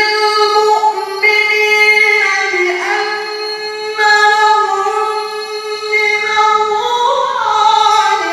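A male qari reciting the Qur'an in the melodic tilawah style, holding long, high notes with ornamented turns. The pitch steps down about a third of the way in and climbs near the end before falling away.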